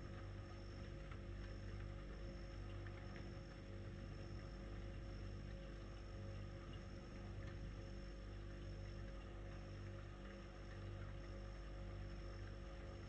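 A steady low mechanical hum, like a motor running, with a faint rushing noise over it.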